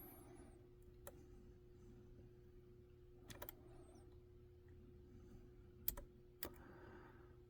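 Faint, sparse metallic clicks of a disc detainer pick turning the discs inside a 40mm disc detainer padlock: one click about a second in, a quick cluster of two or three in the middle, and the loudest click near the end followed by one more.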